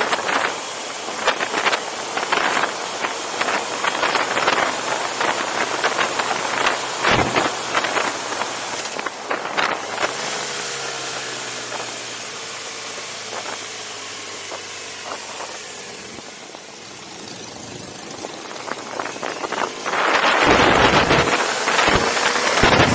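Wind rushing and buffeting over the microphone of a moving BMW adventure motorcycle, with the engine running underneath. In the middle the wind eases and the engine's pitch can be heard gliding down and back up, then the wind noise comes back loud near the end.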